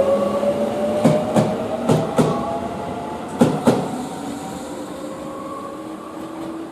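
Electric commuter train pulling away: a motor whine rising slowly in pitch as it accelerates, and the wheels clacking in pairs over rail joints three times, the sound fading as the train moves off.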